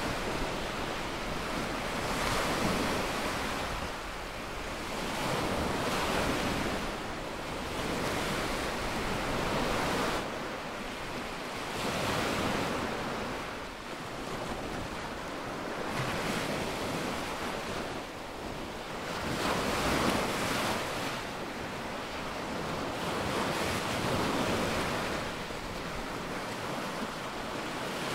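Small waves breaking and washing up onto a sandy beach, the surf swelling and easing every three to four seconds.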